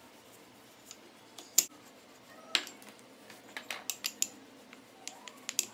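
Wooden rolling pin rolling out a ball of wheat dough on a marble countertop: light, scattered clicks and knocks of wood on stone, the sharpest about one and a half seconds in and a quick cluster around four seconds.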